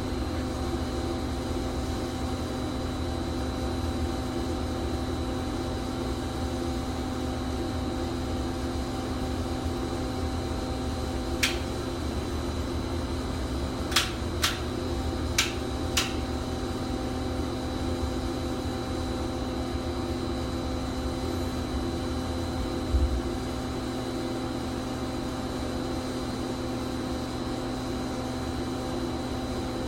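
Electric pipe thawing machine humming steadily as it runs, with a few sharp clicks in the middle and a single thump later on.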